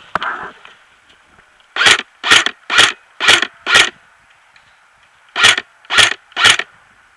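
Battery-powered airsoft MP5 replica firing single shots close up: a string of five shots about half a second apart, a short pause, then three more.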